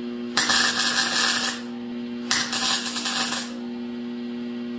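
An electric shop power tool runs with a steady hum. Three times it is pressed against a small piece of metal, and each contact gives a harsh hiss lasting about a second.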